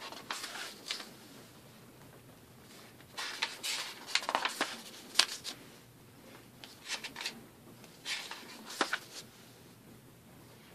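Paper pages of a stapled printed picture book being turned by hand, rustling and crackling in several short bursts.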